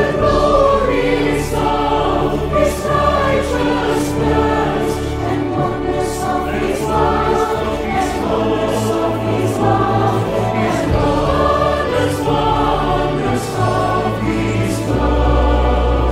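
Mixed church choir singing a Christmas carol medley in harmony, accompanied by an instrumental ensemble holding sustained bass notes. A virtual-choir mix assembled from separately recorded home takes.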